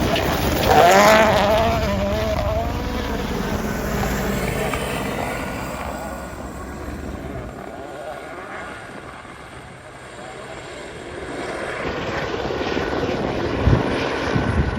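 Rally car engine revving hard through gear changes as it passes, then fading away into the distance. Near the end engine noise builds again.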